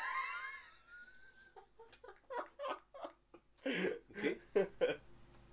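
A man laughing: a high, gliding laugh at the start, then a string of short laughing bursts over the last few seconds.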